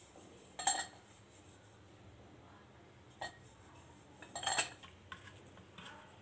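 Metal murukku press being handled while it is greased: three short metallic clinks as its parts knock together and against the steel bowl, one under a second in, one around three seconds and the loudest a little after four seconds.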